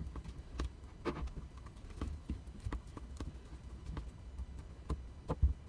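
Silicone spatula stirring and scraping a thick Vaseline-and-salt slime mixture in a glass bowl: irregular soft clicks and squishes a few times a second, with one louder tap near the end.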